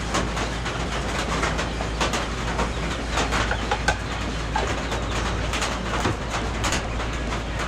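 A steady low engine hum under a dense patter of irregular clicks, with poultry calling now and then.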